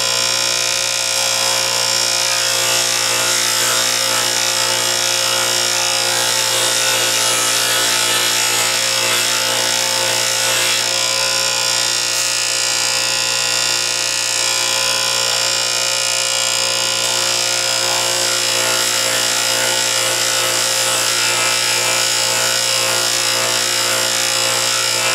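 Bench grinder wheel running steadily while a high-speed-steel lathe threading tool bit is ground against it: an even, continuous grinding sound over the machine's steady hum.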